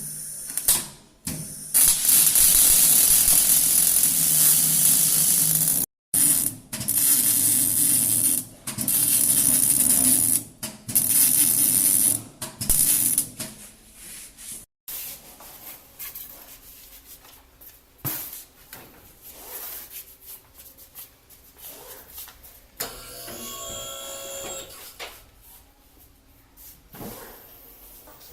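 Exhaust-shop tool noise: several loud hissing bursts a few seconds long, cut between abruptly. After about 15 s it gives way to quieter scattered clicks and knocks.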